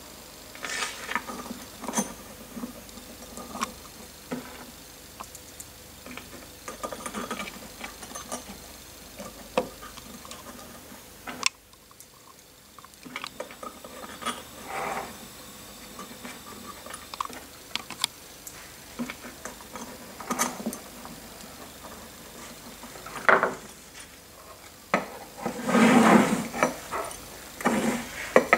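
Small metal parts being handled: screws and square T-nuts clicking and clinking as they go into a steel linear guide rail on a wooden bench, with the rail tapping on the bench now and then. Near the end there is a louder stretch of scraping as the rail is worked along the aluminium C-beam.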